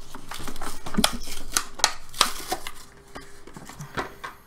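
Cardboard-backed plastic card packaging being torn and peeled open by hand: a run of crinkles and sharp snaps for about three seconds, then a few fainter clicks as the card comes out.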